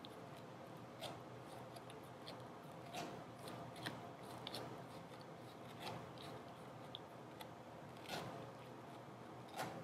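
A dog gnawing a rawhide strip: irregular short crunches and clicks of teeth on the chew, roughly one every second, over a steady low hum.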